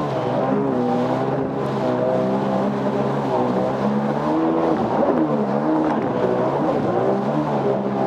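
Jet ski engines running, their pitch rising and falling with the throttle over a steady underlying engine drone.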